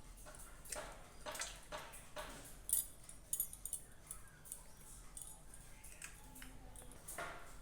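An egg being cracked open by hand: a series of short taps and clicks of the shell, the sharpest about three seconds in, with a little shell crackle.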